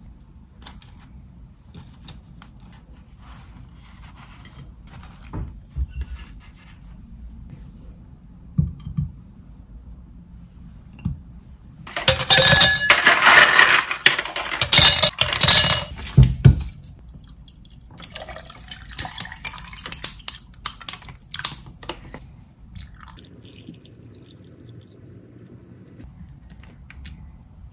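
Ice cubes tipped from a plastic ice tray clattering into a tall glass in one loud burst of several seconds. Afterwards a drink is poured over the ice, with lighter crackling and clinking.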